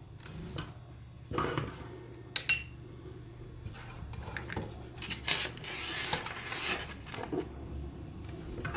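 Small hard objects being handled: scattered clinks and taps, with rustling about halfway through.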